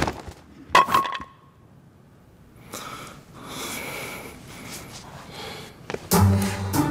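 Martial-arts sound effects for a power gesture: a sharp swish about a second in, then a soft, breathy rushing sound for a few seconds. Background music starts near the end.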